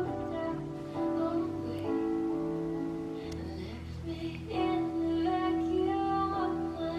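Background music: a soft, gentle track of held notes with a light voice.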